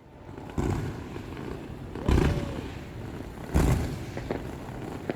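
Aerial firework shells bursting: three deep booms about a second and a half apart, with a few smaller thuds between them and a low rumble hanging on.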